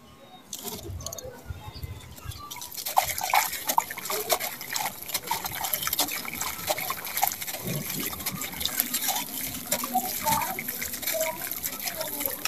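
Dry sand-cement crumbled by hand into a puddle of water, with grit trickling into the water in a dense run of small splashes, drips and crackles.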